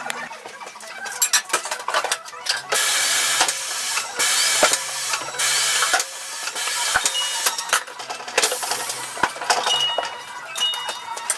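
Fast-forwarded sound of a scooter tyre being worked on a tyre-changing machine: a jumble of rapid metal clicks and clanks from tyre levers and the machine, broken by several bursts of hiss.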